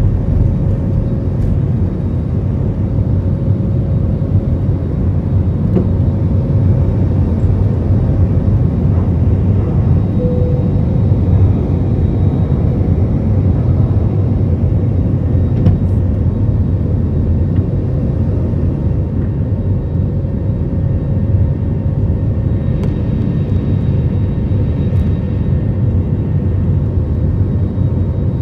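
Cabin noise of an Airbus A320-family twin-engine jet airliner taking off: the engines at takeoff power as the plane lifts off and climbs, a steady, deep rushing noise.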